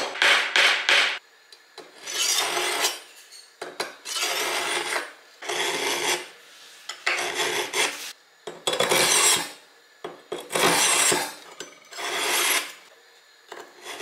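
Kitchen knife blade drawn repeatedly across a pair of lighter flint wheels nailed to the edge of a wooden chopping board, making about eight rasping strokes of roughly a second each. A quick run of knocks comes at the start.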